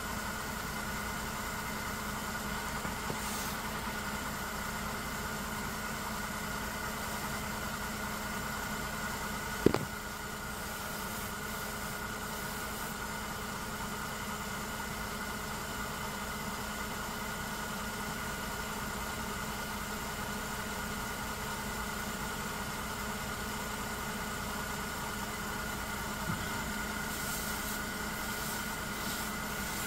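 Mercedes-Benz M272 V6 engine idling steadily, heard from underneath the car by the accessory belt and pulleys, with a steady high tone running through the idle. A single sharp click about a third of the way in.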